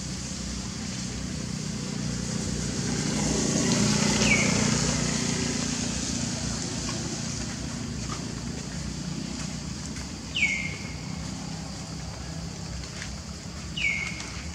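Outdoor ambience with a steady high hiss. A low rumble swells and fades in the first half and is the loudest sound. A short, high call falling in pitch sounds three times.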